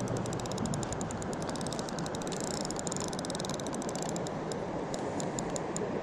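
Spinning reel being cranked to retrieve the line, its gearing ticking rapidly and evenly; the ticks thin out near the end as the cranking slows. A steady rushing noise runs underneath.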